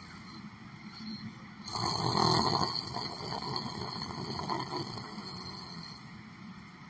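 A person snoring in sleep: one loud snore begins about two seconds in and fades away over the next few seconds.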